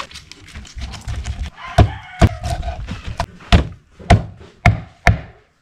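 A knife driven through a fish on a wooden chopping board by blows from a wooden stick: six hard thunks, a pair about two seconds in and then four more about half a second apart.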